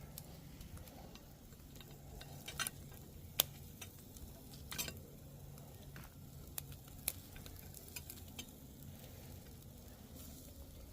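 Marinated chuck steaks sizzling on a charcoal-less improvised toolbox grill, a steady low frying hiss with sharp clicks and pops every second or so.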